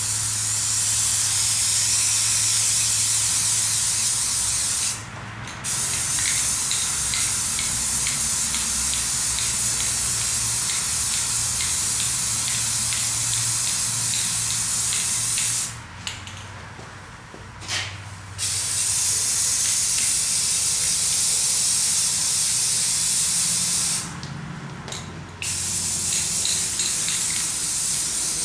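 Rust-Oleum aerosol spray paint can spraying in long hissing passes, stopping briefly about five seconds in, for about two seconds just past the middle, and again for a moment near the end.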